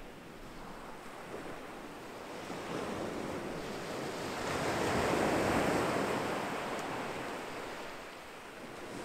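Small sea waves breaking and washing on a pebble beach, one wave building to a louder rush in the middle and then drawing back.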